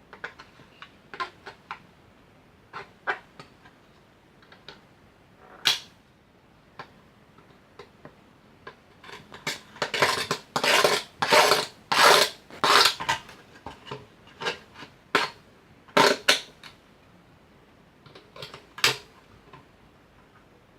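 Metal tool scratching and scraping at the contacts of an electronic unit to score them, with scattered clicks and taps and a run of quick, hard scraping strokes in the middle.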